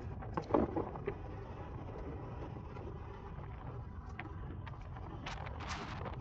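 Bicycle riding on a paved path: a steady low rumble of tyre and wind noise on the microphone. About half a second in, a short loud rattle comes as the bike rolls over a crack in the pavement. A few more sharp clicks follow near the end.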